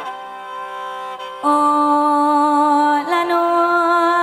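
Amplified khaen (Lao-Isan bamboo free-reed mouth organ) playing sustained chords over a drone, jumping louder about 1.4 seconds in and shifting to a new chord near the three-second mark.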